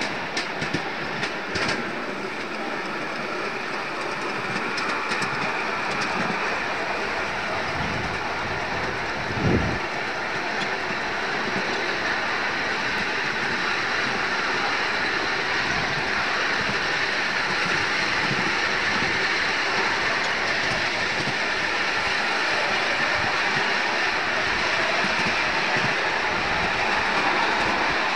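Ride-on 7.25-inch gauge miniature steam train running, heard from a passenger coach: a steady rolling clatter of wheels on rail. A few sharp clicks come in the first two seconds, and a single short thump comes about nine and a half seconds in.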